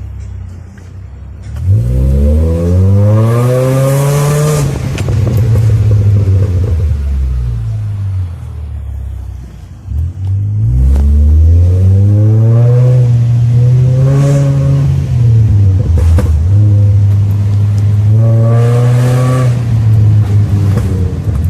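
Proton Inspira's 4B11 2.0-litre inline-four revved repeatedly through its exhaust, the engine note climbing and falling about three times and held high near the end. A few sharp pops come as the revs drop, the crackle from a remapped ECU.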